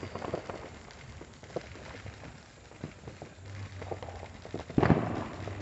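Distant neighbourhood fireworks: scattered small firecracker pops and crackles, then one loud bang with an echoing tail near the end.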